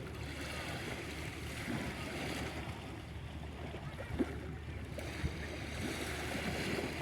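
Outdoor wind buffeting the microphone: an uneven low rumble with a steady hiss above it, and two faint knocks about four and five seconds in.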